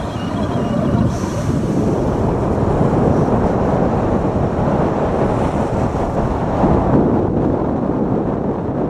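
Rushing wind on the microphone and the scrape of an ALS Supersport racing toboggan's runners on groomed, packed snow as it slides fast down the run.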